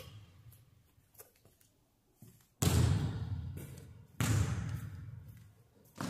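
Basketball bouncing hard on a hardwood gym floor: three sharp bounces a second and a half or so apart, starting about two and a half seconds in, each echoing in the large empty gym.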